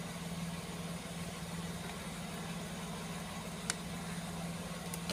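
Steady low machine hum, with one short click a little past halfway.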